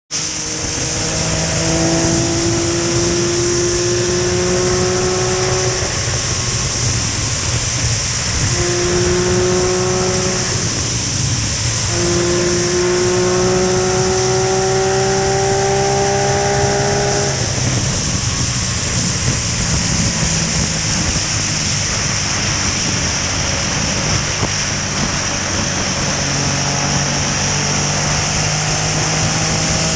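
Motorcycle engine running at highway cruising speed, under a steady rush of wind and road noise. Its hum rises slowly in pitch over several stretches of a few seconds each.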